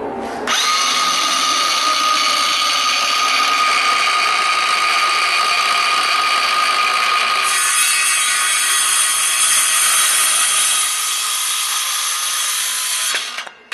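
Milwaukee 0730-22 cordless 28-volt 6-1/2-inch circular saw spinning up with a rising whine about half a second in, then cutting along a wooden board with a steady high whine and the rasp of the blade in the wood, which grows brighter about halfway through. Near the end the trigger is released and the blade winds down with a falling whine.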